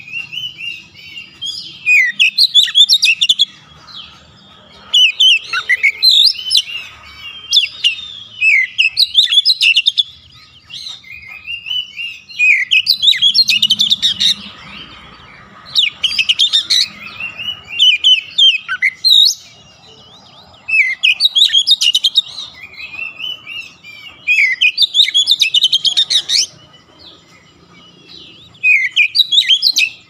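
Oriental magpie-robin (kacer) singing in full voice: loud, high, rapid whistled and chirping phrases, each a second or two long, repeated about eleven times with brief pauses between.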